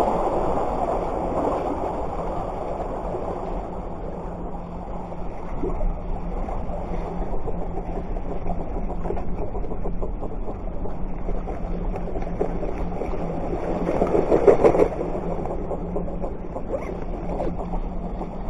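Steady wind and surf noise on the shore, swelling louder for about a second around fourteen seconds in, with a faint steady low hum underneath.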